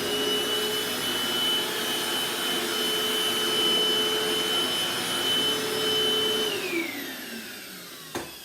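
Eureka Optima 431 DX bagless upright vacuum cleaner running with a steady high motor whine. About six and a half seconds in it is switched off and the whine falls as the motor winds down. A single click near the end.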